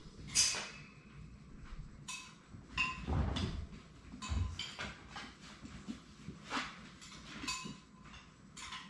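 Labrador retriever puppies playing: a scattered series of short, sharp yips or squeaks and knocks, about a dozen in all, with two dull thumps around three and four and a half seconds in.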